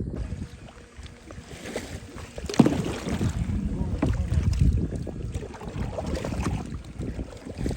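Kayak paddles dipping and splashing in the water in uneven strokes, the sharpest splash about two and a half seconds in, over the low rumble of wind buffeting the microphone.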